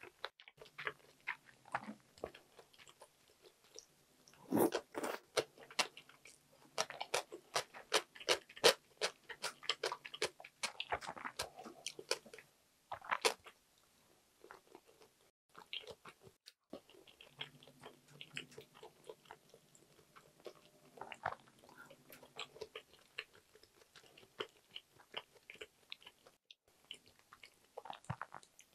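A person eating: crunching and chewing mouthfuls of food in a run of crisp crackles. The crunching is loudest and thickest a few seconds in, pauses briefly past the middle, then goes on as softer chewing.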